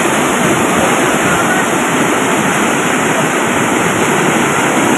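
Floodwater rushing and churning through a breach in a washed-out road where a culvert has collapsed, a steady torrent of water.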